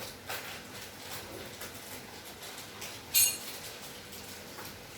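Household items being handled, with small knocks and clatter and one sharp, ringing metallic clink about three seconds in.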